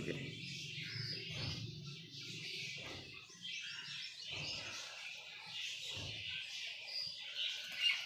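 Small birds chirping, a steady high twittering, with a few soft taps.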